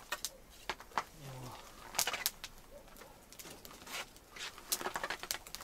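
Campfire wood crackling and snapping in scattered sharp pops, with a short low hum from a man a little over a second in.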